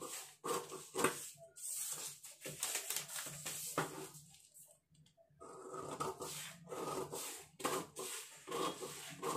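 Scissors cutting through pattern paper in repeated snips, with the paper rustling and rubbing on a wooden tabletop; a short pause a little before halfway.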